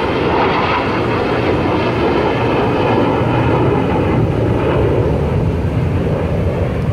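Jet roar from the four-ship formation of Thunderbirds F-16 fighter jets flying past: a loud, steady rushing rumble.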